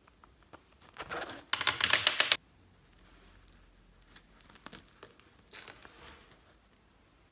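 Close crackling and crinkling from something being handled by hand: a short, loud, dense crackle in the first half, a softer one just before it, then scattered light clicks and a quieter crackle later.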